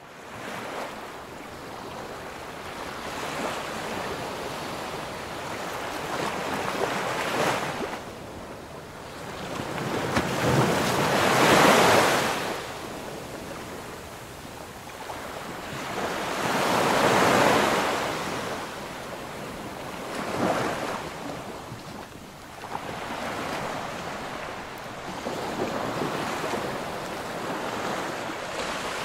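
Small sea waves washing onto the shore, swelling and fading every few seconds, with wind on the microphone.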